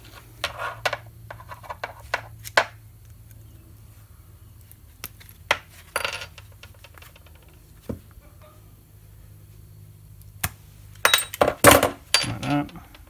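Pliers gripping and peeling away a spiral-cut aluminium hose-end ferrule on a power steering return hose: scattered metallic clicks and scrapes, with a burst of louder clinks near the end.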